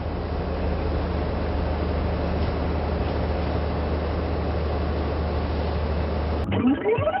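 Truck engine sound effect for a cartoon garbage truck, running steadily with a low hum under a hiss. About six and a half seconds in it cuts off suddenly and bright music with quick rising notes takes over.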